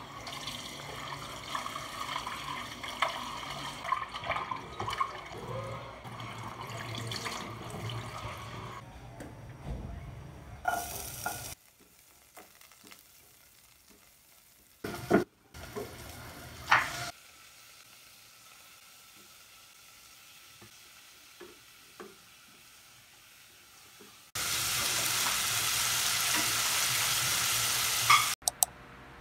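Cooking in a pan: food frying while it is stirred, with clicks and knocks of a utensil. Near the end comes a loud steady hiss that starts and stops suddenly.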